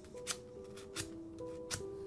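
Sandpaper rubbed in short strokes along the steel back of a handsaw blade, three strokes about two-thirds of a second apart, over background music of slow held notes.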